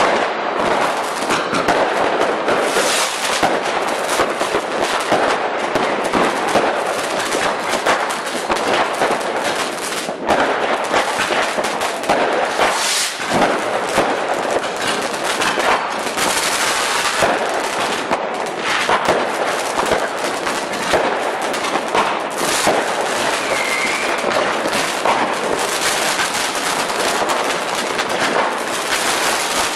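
Fireworks going off in a dense, continuous barrage of rapid crackling pops and bangs, with no pause.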